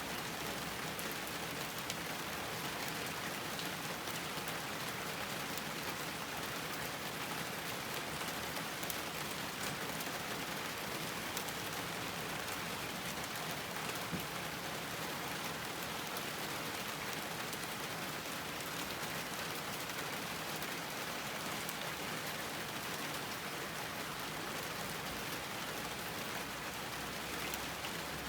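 Steady rain falling on a garden, an even hiss with scattered individual drops pattering on surfaces.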